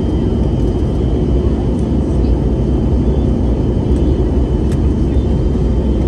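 Airliner cabin noise during descent: a steady, deep roar of engines and rushing air, with a faint high whine held steady throughout.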